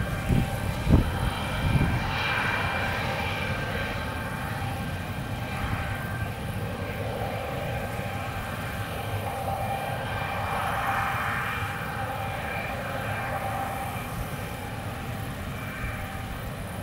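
Long freight train of covered wagons rolling past: a steady drone with thin, even whining tones over a low rumble, and a few low thumps in the first two seconds.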